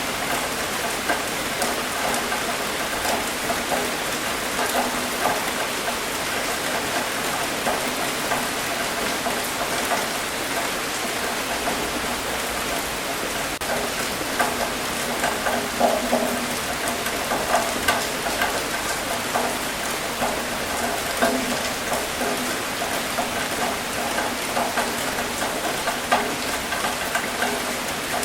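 Steady rain falling on a hard surface, with dense patter and individual drips and splashes.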